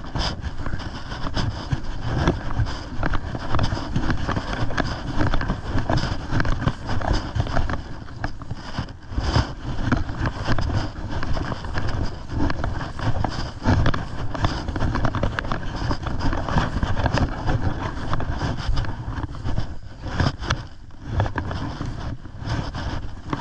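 Walking through tall dry grass: rustling and brushing of stalks and footsteps, with wind rumbling on the body-worn camera's microphone.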